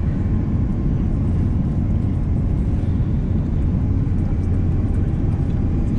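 Steady low rumble of an Airbus A330's cabin on approach, with engine and airflow noise heard from a window seat and a faint steady whine on top.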